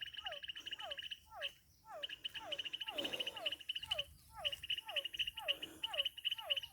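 Chorus of frogs: many short, falling calls, about three or four a second, over a continuous pulsing trill, pausing briefly about a second and a half in.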